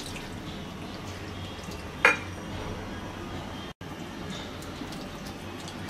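A hand mixing chunks of marinated beef with a little water in a pot: soft wet squishing with light scattered clinks against the pot, and one sharp metallic clink about two seconds in.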